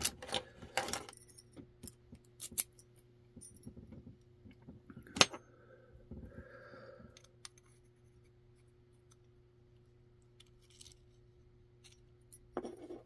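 Small metal parts of a disassembled lock cylinder clicking and clinking as they are handled and set down, the sharpest click about five seconds in; the last several seconds hold little sound.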